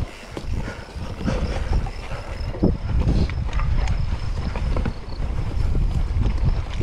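Wind buffeting the microphone, over rattles and knocks from a mountain bike ridden across rough, trackless ground.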